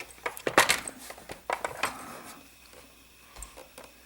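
Clicks and knocks of the Designer 1 sewing machine's plastic housing and parts being handled and pressed into place, a quick run of them in the first two seconds, then only a few faint ticks.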